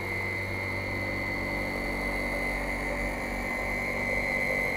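CNC machining center running, a steady mechanical drone with a low hum and a high steady whine.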